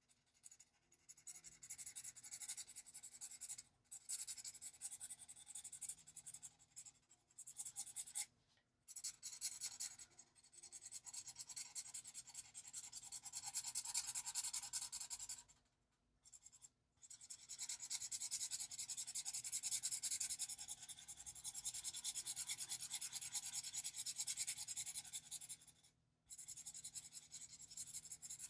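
Ohuhu alcohol marker (CG6 cool grey) stroking quickly back and forth on paper, a fine scratchy rubbing, broken by a few brief pauses as the marker lifts.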